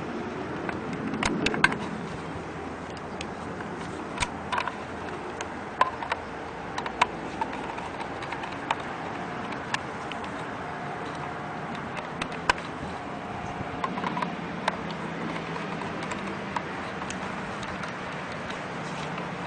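Steady outdoor background noise with scattered light clicks and taps, a cluster of them about a second and a half in.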